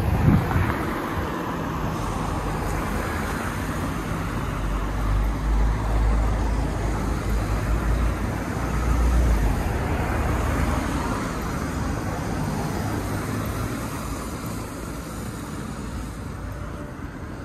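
Road traffic: cars driving past on a town street, with steady tyre and engine noise. A deep rumble swells in the middle and fades again.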